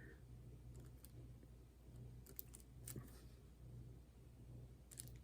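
Near silence: a steady low room hum with a few faint, scattered clicks, a couple in quick succession near the middle and two more near the end.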